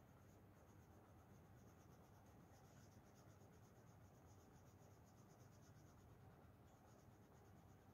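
Very faint, rapid back-and-forth scratching of colouring strokes on paper as an area of a drawing is shaded in, with a short break near the end.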